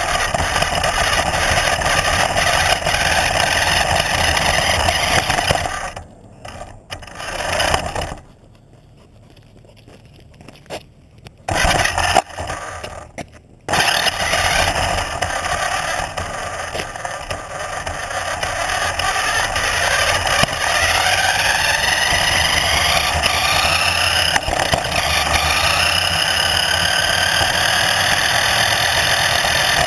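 A motor whining, its pitch rising and falling as it speeds up and slows down, with scraping and rattling and several brief cut-outs in the first half.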